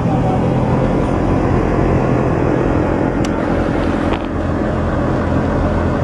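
Engine of a mud-covered off-road 4x4 running steadily at idle, with a short sharp click about three seconds in.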